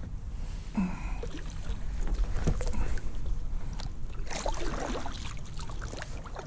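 Water splashing and knocks against a plastic kayak as a hooked fish is brought alongside, with wind rumbling on the microphone. The splashing peaks about four seconds in.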